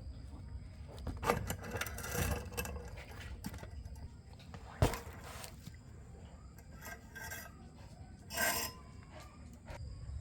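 Tools and metal parts being handled during machine repair: rubbing and scraping, one sharp knock about five seconds in, and a short scrape near the end.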